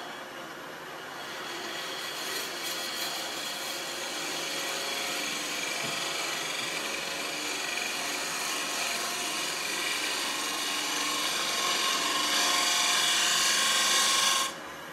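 Turning tool cutting the face of a spinning maple platter on a wood lathe: a rough scraping noise over the lathe's steady running. It builds up about a second in, grows louder toward the end and stops abruptly near the end.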